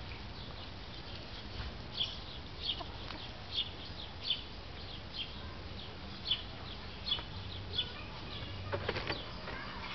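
A bird chirping: short high chirps repeated about once a second. A brief rustling flurry near the end.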